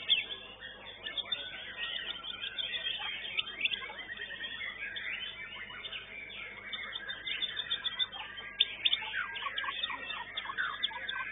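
Many caged white-rumped shamas (murai batu) singing at once: a dense, unbroken tangle of quick chirps, trills and whistled phrases.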